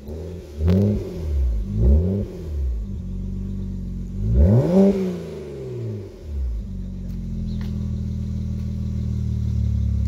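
BMW X6 35i's twin-turbo inline-six engine revved through dual exhaust tips. It gives a few quick throttle blips in the first three seconds and one longer rev about four and a half seconds in, then settles to a steady idle.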